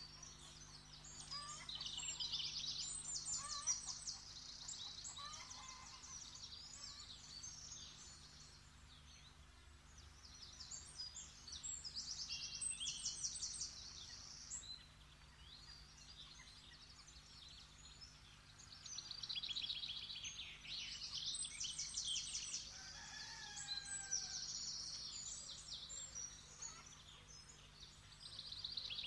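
Small birds chirping and trilling in several bouts of a few seconds each, high-pitched and rapid, over a faint steady low hum.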